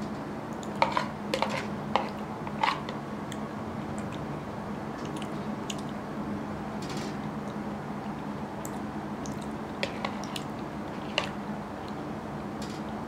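Metal spoon clinking against a bowl while scooping curry and rice: a cluster of sharp clinks in the first few seconds and a few more near the end, over a steady low hum.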